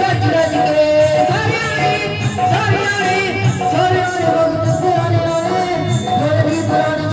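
Bhajan (Hindu devotional song) performed live through loudspeakers: a male voice singing over keyboard and a steady drum rhythm.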